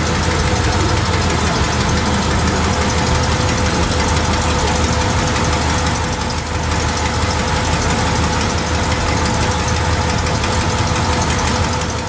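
Engine of a 1962 Chevrolet Impala convertible running at idle as the car creeps past close by at walking pace, steady and loud.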